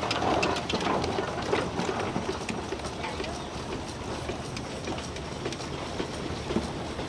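Steam traction engine driving by, its exhaust chuffing in a quick, uneven beat that grows fainter about halfway through.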